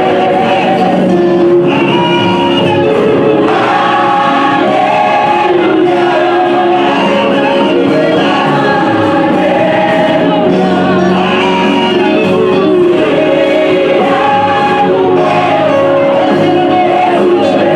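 Live gospel praise-and-worship music: a male lead singer singing into a microphone with a group of backing vocalists singing with him.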